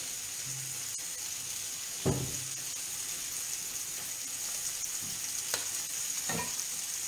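Octopus tentacle pieces frying in olive oil in a pan, a steady sizzle. A few light knocks are heard about two seconds in and twice near the end.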